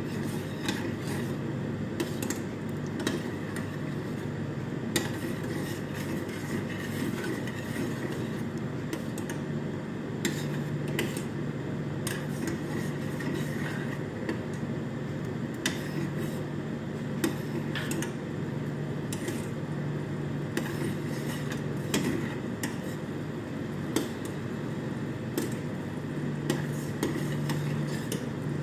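A metal spoon stirring a thickening cream sauce in a small stainless steel saucepan, clicking and scraping against the pan at irregular moments, over a steady low hum.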